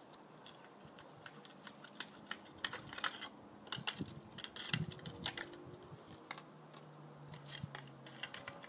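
Irregular light clicks and clinks as metal climbing gear on a harness jangles while the climber moves up the rock.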